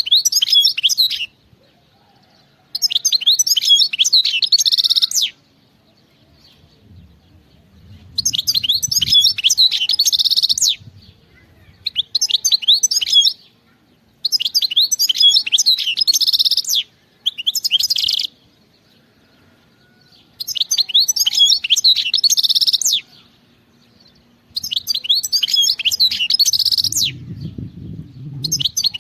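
European goldfinch singing in repeated loud phrases of rapid, high twittering notes, many ending in a brief buzzy stretch, with short pauses between phrases. A faint low rustle sounds a little after the first third and again near the end.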